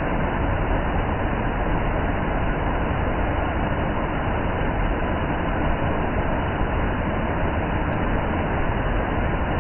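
Waterfall's rushing water: a loud, steady roar without a break.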